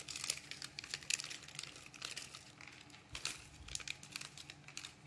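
Plastic packaging crinkling in quick, irregular crackles as it is handled.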